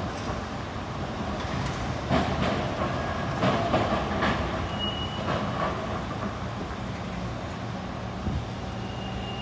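Gomaco-built replica Birney streetcar rolling along street rails, its running gear humming steadily, with a run of clacking knocks from the wheels over the track about two to four seconds in.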